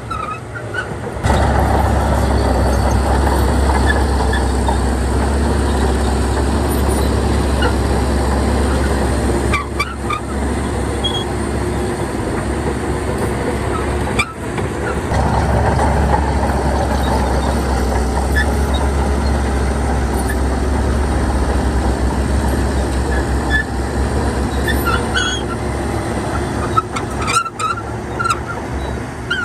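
Heavy diesel earth-moving machinery running steadily under load, broken off abruptly a few times.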